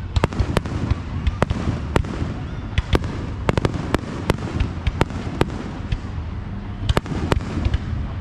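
Aerial fireworks shells bursting: a rapid, irregular string of sharp bangs and cracks, several a second at times, over a steady low background rumble.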